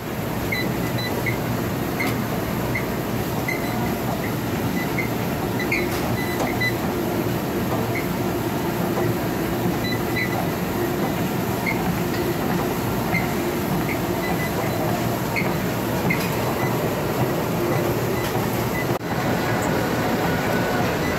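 Life Fitness treadmill starting up and running steadily, its belt and motor making a constant rumble under a person walking at about 3 mph on an incline. Short console beeps sound every second or so as the speed and incline buttons are pressed.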